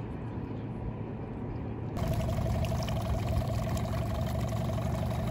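Low rush of water, cut about two seconds in to a small dinghy outboard motor running steadily over splashing water.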